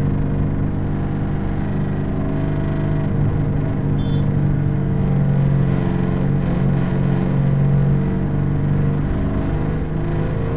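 Bus engine drone and road noise heard from inside a moving coach, steady with a slight change in engine pitch midway.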